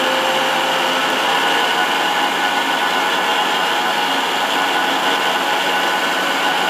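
Electric mixer-grinder (mixie) running steadily with its juice jar full of fresh coconut flesh, grinding it into coconut milk.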